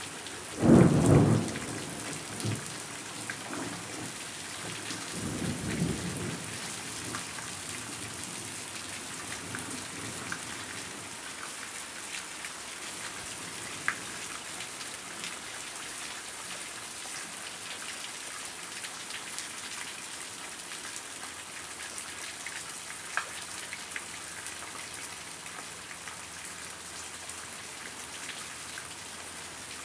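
Steady heavy rain. Thunder comes with a loud burst about a second in and a weaker rumble around six seconds in.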